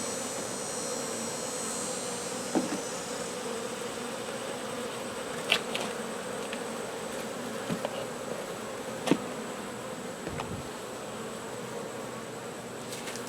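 Honey bees buzzing in a steady hum around an opened hive, with a few short sharp clicks from the hive being handled.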